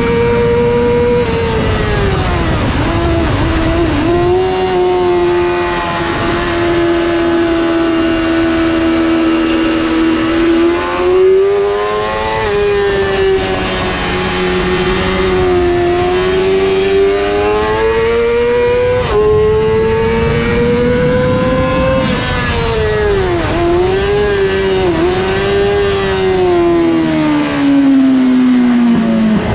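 2007 Yamaha YZF-R6 inline-four engine at high revs around a race circuit. Its pitch climbs and falls repeatedly, with sudden steps at gear changes and a run of short dips while slowing late on.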